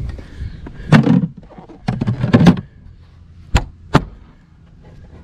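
Gear being handled and shifted inside a bass boat's storage compartment, then two sharp knocks of the compartment hatch about half a second apart.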